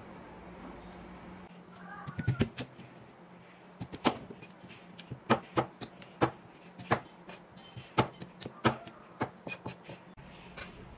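Steel cleaver chopping peeled cassava on a plastic cutting board. Sharp chops start about two seconds in and come at an uneven pace, roughly two a second.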